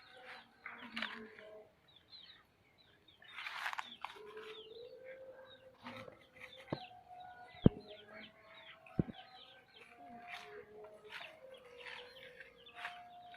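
Chickens: many short, high, falling peeps mixed with a hen's lower held calls and clucks, and three sharp clicks around the middle.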